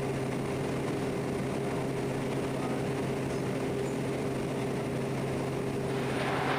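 Quest Kodiak 100's turboprop engine and propeller droning steadily at an unchanging pitch during the landing touchdown and rollout on a grass strip.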